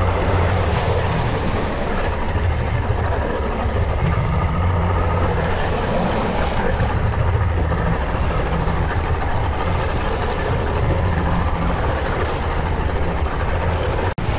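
Outboard motor running steadily at trolling speed, a low hum mixed with wind and the wash of choppy sea against the hull. The sound drops out for an instant near the end.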